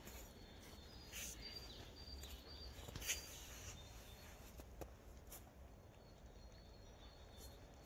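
Faint outdoor quiet with a low rumble and a few soft, scattered crunches of footsteps on thin snow, the loudest about three seconds in.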